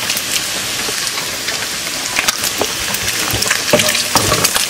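Chopped bacon sizzling in a nonstick skillet as a wooden spatula stirs it, with short scrapes and light knocks of the spatula against the pan from about two seconds in.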